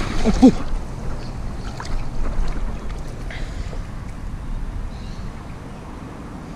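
Wind buffeting the microphone with a steady low rumble, over faint water sounds at the shoreline.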